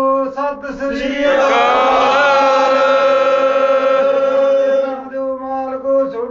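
A man chanting in a sung style, with short phrases at first, then one long held note from about one second to five seconds in, then short phrases again.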